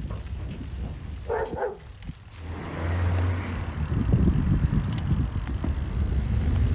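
Mountain bike riding along a trail: a low rumble of riding noise that grows louder from about halfway through, with a brief double squeak about a second and a half in.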